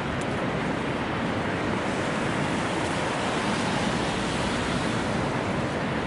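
Steady rush of water, a continuous even wash of noise with no distinct splashes or breaks.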